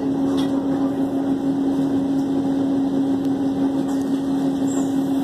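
Passenger train's running noise heard from inside the carriage at low speed: a steady hum with one constant tone over a dull rumble.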